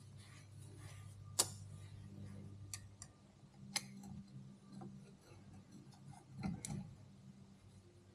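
Motorcycle clutch plates clicking and clinking as they are handled and set down: a few sharp clicks, the loudest about a second and a half in, another near four seconds and a short cluster near the end, over a low steady hum.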